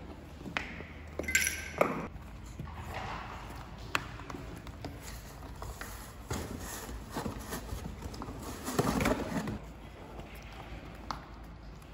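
Scattered light knocks and rustling from a baby monkey moving about in a cardboard play house, with a louder rustle about three-quarters of the way through.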